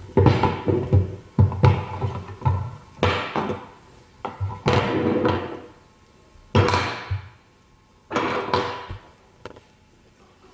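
Hard plastic parts of an ALISKID manual meat grinder being handled and fitted together: about ten knocks and clatters, each with a short scraping rattle, sparser in the last two seconds.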